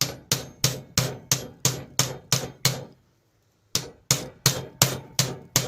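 Repeated hammer blows on a socket, tapping a polishing mop onto a bench grinder's spindle: a steady run of short, ringing knocks about three a second, a brief pause about three seconds in, then more. The mop is a tight fit and is not going on.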